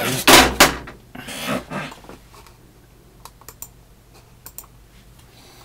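Typing and clicking at a computer keyboard and mouse: a flurry of keystroke noise in the first two seconds, then a few scattered single clicks.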